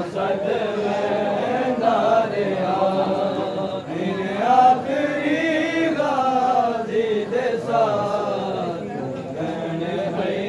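Many men's voices chanting a noha together in unison, a Muharram lament sung by a mourning group.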